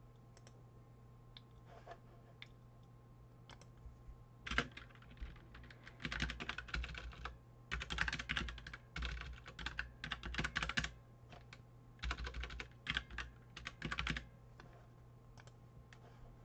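Typing on a computer keyboard in several quick spurts, a few seconds in and running to near the end, with a few faint single clicks before it. A steady low hum lies underneath.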